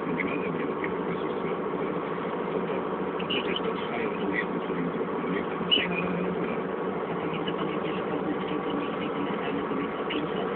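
Atlas excavator's diesel engine running steadily, with scattered short crackles and a sharper knock about six seconds in.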